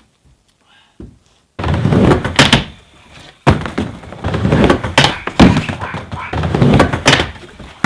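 Skateboard riding a miniramp: wheels rumbling on the ramp surface with repeated hard knocks of the board and trucks on the ramp and coping. It starts about a second and a half in, out of near silence.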